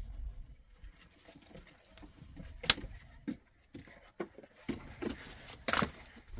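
Irregular knocks and clicks of objects being handled, with two sharper knocks, one a little under three seconds in and one near the end.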